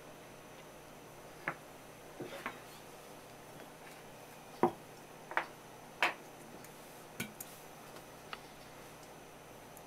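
About ten light, sharp clicks and taps, irregularly spaced, the loudest around the middle, over faint room tone.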